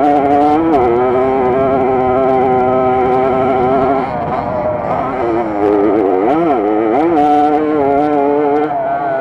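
Small two-stroke moped engine running hard at high revs under load, its pitch mostly steady, dipping sharply and recovering twice about six to seven seconds in, with a few light knocks from the bike over rough ground.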